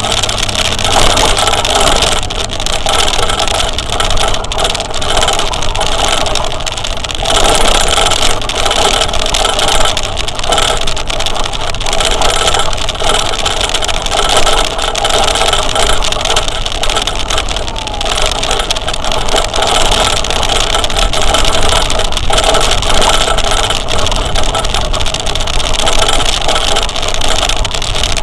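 Motor vehicle on the move: a steady engine with dense road and wind noise.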